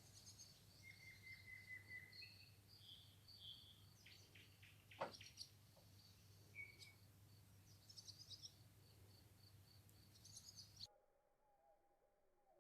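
Faint small birds chirping and trilling, with one high pip repeating about three times a second over a steady low hum. It all cuts off suddenly near the end.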